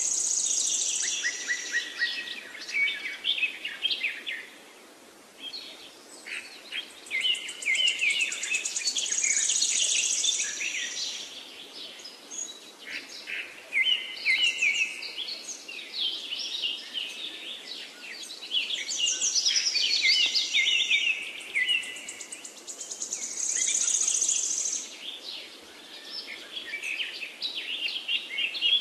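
Birdsong: phrase after phrase of quick chirps and high buzzy trills, each phrase lasting a few seconds with short pauses between.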